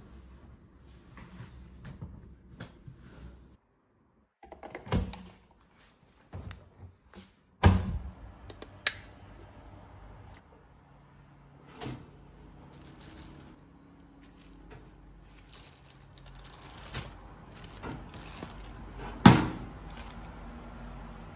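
Household handling noise: a scatter of knocks and clunks, the loudest about 8 and 19 seconds in, as things are moved and set down indoors.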